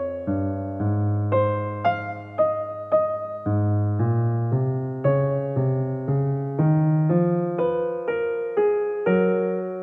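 Background piano music: a gentle melody of evenly paced notes, about two a second, each fading away, over held low notes.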